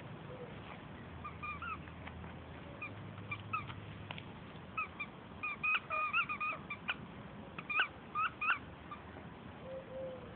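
Squeaky dog toy squeaked over and over in short, high squeaks as two dogs chew and tug at it, most often in the second half.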